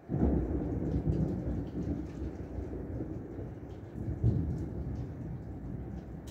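A clap of thunder breaking suddenly and rumbling on for several seconds, with a second swell about four seconds in, over heavy tropical rain.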